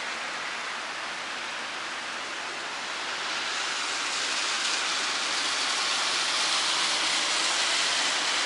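Steady summer rain falling on a wet parking lot, road and parked cars: an even hiss that grows a little louder in the second half.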